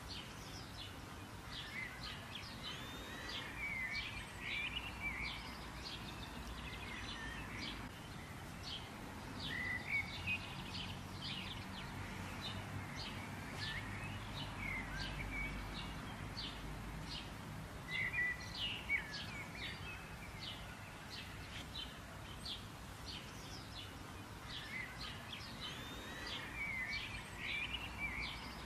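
Small birds chirping: a steady scatter of short, high chirps with bursts of twittering every several seconds, over a low outdoor background rumble.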